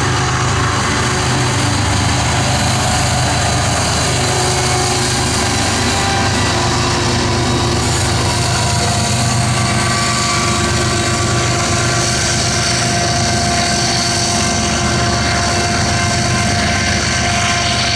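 Freight train passing close: loaded covered hopper cars rolling on steel wheels, then the rear distributed-power BNSF diesel locomotive going by with its engine running. A steady, loud rumble with thin, steady high tones from the wheels on the rails.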